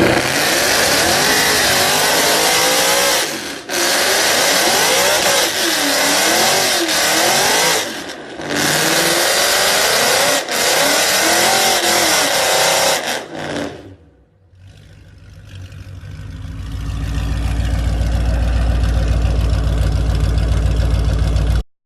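Ford Mustang engines revved hard up and down over loud tyre noise, as in burnouts and drifts, in several clips that cut in and out abruptly. After a brief lull about two-thirds of the way in, a deep engine rumble builds steadily louder for several seconds and then cuts off suddenly.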